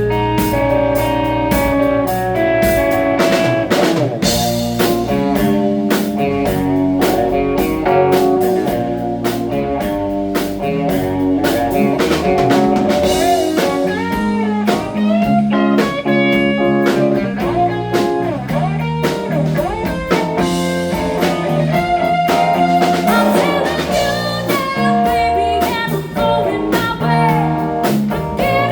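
Live band playing a blues-rock number: guitar lines over a drum kit, with pitched notes bending in the middle stretch.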